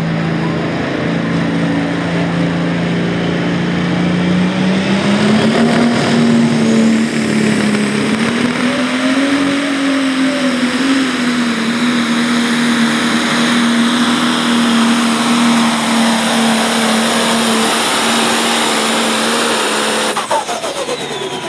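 Pro stock pulling tractor's turbocharged diesel engine running flat out on a pull. The pitch climbs a few seconds in, then holds high and steady, and the engine drops off sharply near the end as the run finishes.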